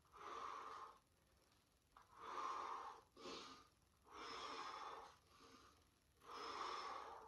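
Faint breathing from a man working through slow paddle strokes: about four soft breaths, roughly two seconds apart, in time with the strokes.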